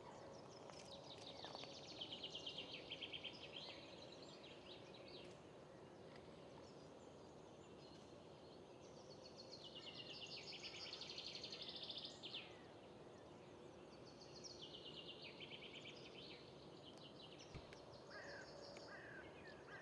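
Faint outdoor ambience with a songbird singing fast, high trills in repeated phrases of a second or two, four times over, and a few short chirps near the end.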